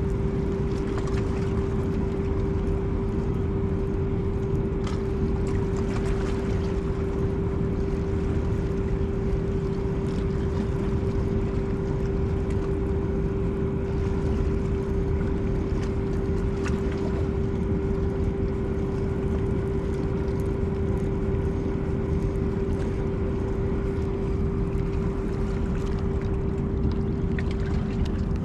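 Steady engine hum holding one even pitch without change, over a low rumble of wind on the microphone.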